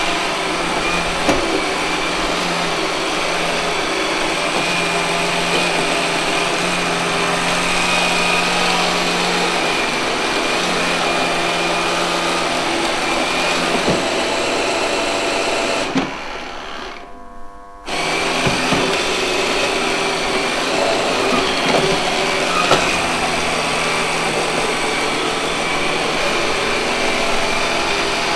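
Robot vacuum cleaner running, a steady whir of its motor and brushes with a few short knocks as it moves about. The noise drops away for about two seconds a little past halfway, then resumes with a click.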